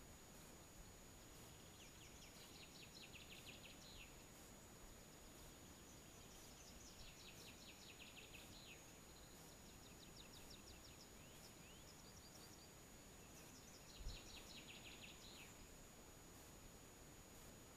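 Faint bird song: a songbird singing short phrases of rapid trilling notes, each about two seconds long, four times, over a faint steady hiss. A soft low bump sounds about fourteen seconds in.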